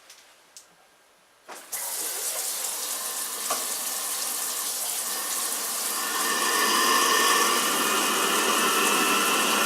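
A tap opens and water runs steadily. A few seconds in, the Navien NPE-180 tankless water heater starts up on high fire with its cover off, adding a steady whine of several tones and raising the level.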